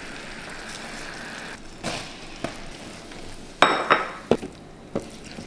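Butter and honey bubbling with a soft sizzle in a copper saucepan, then several knocks and clinks of a spatula against the pan as ground almonds and sugar are stirred in. The loudest clink, about three and a half seconds in, rings briefly.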